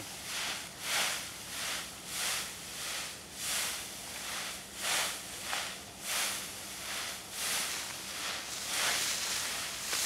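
Dry, ripe wheat stalks rustling in a series of swishes, about one a second, as a rope is dragged and jerked through the standing crop.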